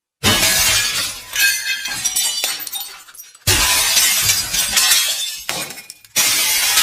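Glass shattering three times, each a sudden crash followed by shards tinkling and settling for a couple of seconds; the last break comes near the end.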